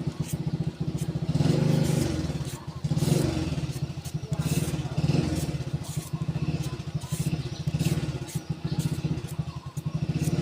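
A small engine running steadily with a fast, even putter, swelling louder and softer a few times.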